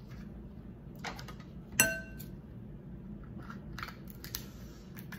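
Eating sounds from a seafood boil: gloved hands picking at shellfish and shell, with scattered soft clicks and crackles. About two seconds in, one sharp clink with a brief ring stands out as the loudest sound.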